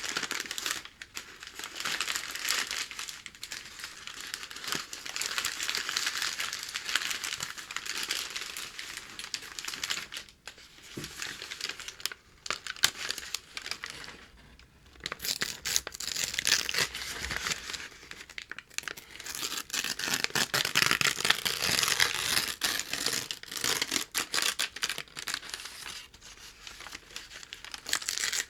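Packing paper being crinkled and torn by hand: dense, scratchy crackles and rips, with short pauses about ten seconds in and around fourteen seconds.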